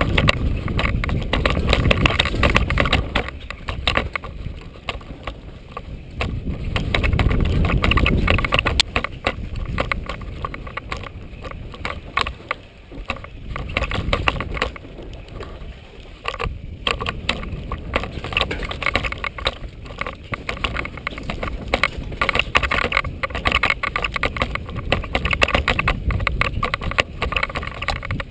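Downhill mountain bike running fast over a rough dirt singletrack: tyres on loose dirt, with constant rattling and clattering over bumps and roots, and wind buffeting the camera's microphone in low rumbling surges.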